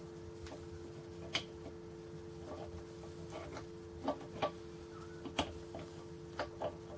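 Irregular light metallic clicks and knocks as the IZh Planeta 5 clutch basket is worked onto its shaft to catch the key, over a steady low hum.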